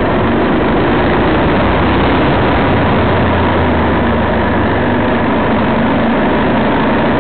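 Steady, loud wind rush over the microphone of a camera riding along on a racing bicycle at speed.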